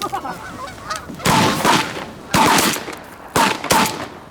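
Canada geese honking, then four loud shotgun blasts about a second apart as hunters fire on the incoming flock.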